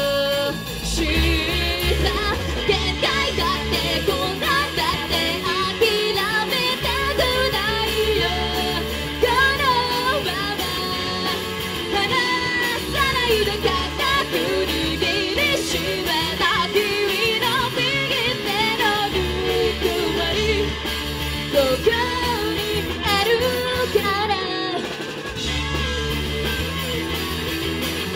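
A live rock band playing a song: a woman singing lead over electric guitar, bass and drums, with a short break in the bass and drums near the end.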